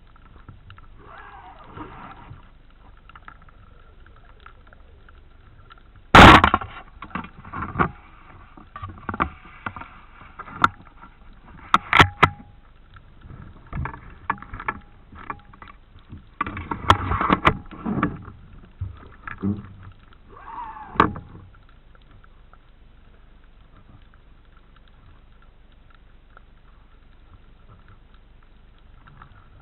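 Underwater sounds during a spearfishing dive. A faint steady hum runs throughout. About six seconds in comes one sudden loud crack, the loudest sound, followed until about twenty seconds by a series of sharp knocks, clicks and rushing water noises.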